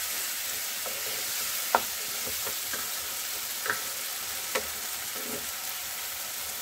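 Green peas and masala sizzling in a kadai on high heat while a spatula stirs them, the spatula clicking against the pan a few times, sharpest about two seconds in.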